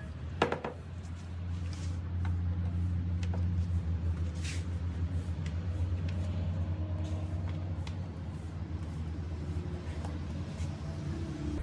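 Clicks and knocks of equipment being handled on a wooden table: a loudspeaker set down and alligator clips clipped onto a battery's terminals, with a sharp click about half a second in. A steady low hum runs underneath.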